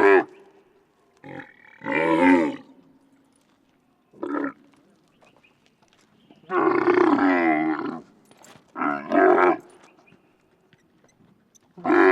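Camel grunting loudly in a series of separate pitched, bellowing calls, some short and some drawn out, the longest about a second and a half, with brief pauses between them.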